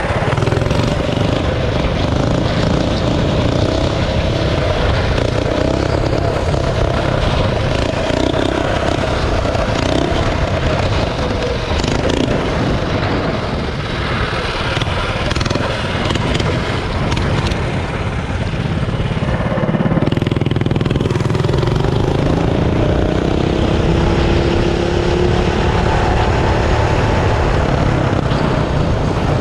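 Minibike's stage-two Tillotson 212 cc single-cylinder engine, fitted with an aftermarket header pipe, running steadily under way with wind noise. About two-thirds of the way through, the engine note rises as it accelerates.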